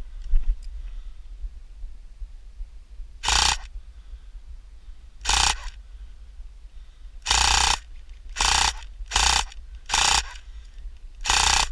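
An airsoft rifle firing seven short full-auto bursts, each about half a second long, at uneven intervals that come quicker toward the end.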